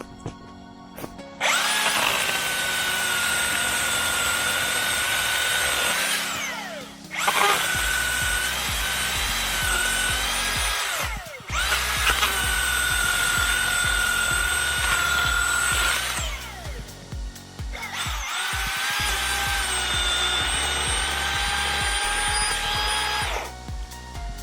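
Milwaukee M18 20-inch battery chainsaw's electric motor and chain running at speed in four separate runs, cutting through wood. Its steady high whine dips slightly in pitch now and then, and each run ends in a falling whine as the saw winds down.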